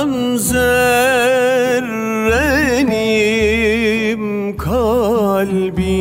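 A man singing a slow Turkish ilahi in long, melismatic phrases with heavy vibrato, with an oud and a deep steady drone underneath.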